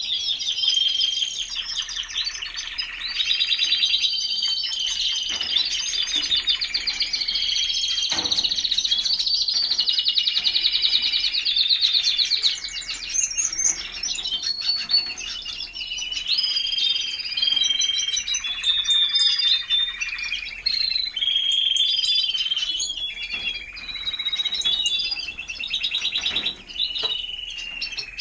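Timbrado español canaries singing: fast rolling trills alternating with held whistled notes, the phrases following one another almost without a break.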